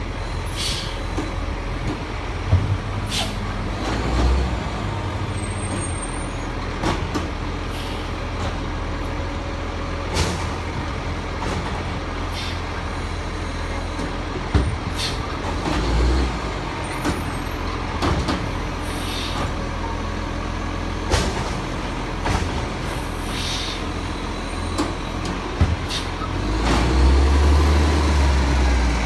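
Iveco garbage truck's diesel engine idling with a steady low drone, broken by repeated short air hisses and knocks. Near the end the engine rises louder for a couple of seconds as the truck pulls forward.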